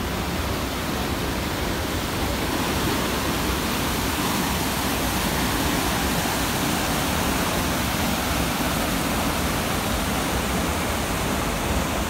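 The Una river's white-water rapids, water pouring over rock ledges in a steady, unbroken rush.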